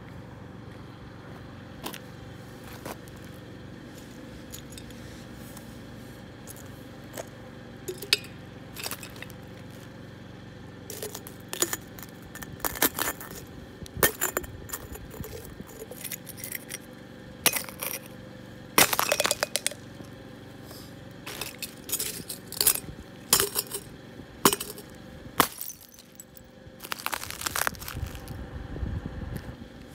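Caterpillar work boot stomping glass jars and bottles inside a plastic bag on asphalt: sharp crunches and clinks of breaking glass. They start about eight seconds in and come thick and fast through the second half, over a steady low hum.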